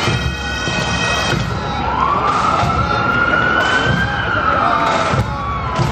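A siren wailing, its pitch climbing slowly for a couple of seconds, holding, then falling, with low thumps underneath; it opens with a steady held tone for about a second.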